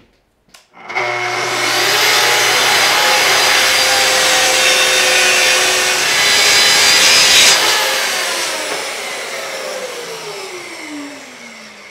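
Track saw starting up and ripping through two clamped layers of half-inch maple plywood along a guide rail. About seven and a half seconds in the cut ends and the motor winds down, its whine falling steadily in pitch.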